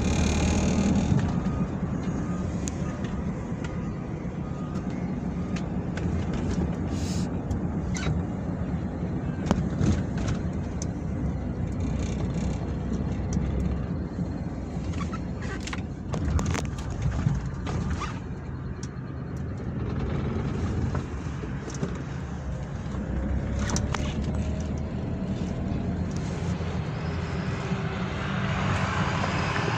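Car interior while driving: steady engine and road rumble, with scattered light clicks and knocks.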